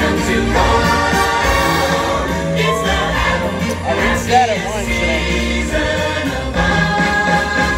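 Christmas stage-show music with a choir singing over a steady bass line.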